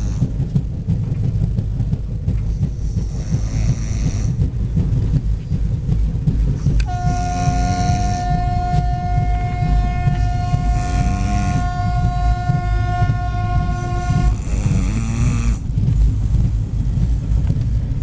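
A man snoring loudly, a low fluttering rattle with a breath cycle about every three to four seconds. A steady pitched tone, horn-like, holds for about seven seconds in the middle.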